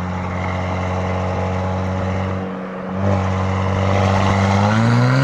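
Audi B9 3.0T turbocharged V6 exhaust, fitted with an aftermarket downpipe and midpipes, running steadily as the car drives. The sound dips briefly about two and a half seconds in, and the revs climb near the end as the car accelerates.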